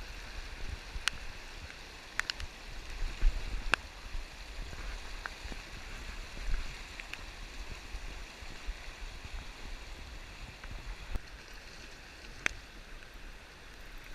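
River water rushing steadily, with occasional low thumps and a few sharp clicks.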